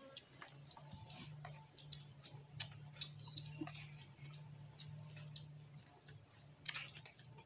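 Eating sounds: scattered sharp clicks and smacks of chewing and of hands picking at fish on banana leaves, the loudest about two and a half and three seconds in. A faint, steady low hum runs underneath.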